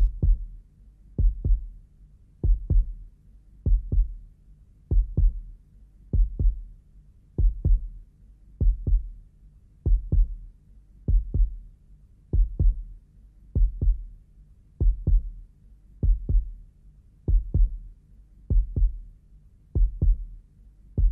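Heartbeat sound effect: deep double thumps, lub-dub, repeating evenly about once every second and a quarter.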